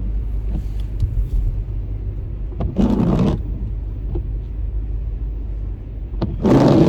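Steady low road and engine rumble inside a moving car's cabin, with a short, loud swish about three seconds in and another near the end.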